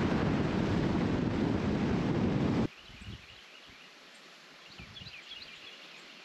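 Heavy wind buffeting the microphone, which cuts off abruptly about two and a half seconds in. Then quiet outdoor ambience with a few faint high bird chirps and a couple of soft low thumps.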